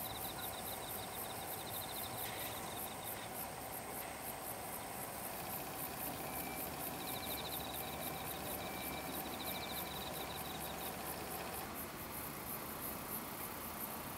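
Insects chirping in the grass: a steady high pulsing chorus with repeated spells of rapid trilling. A faint steady hum underneath stops a couple of seconds before the end.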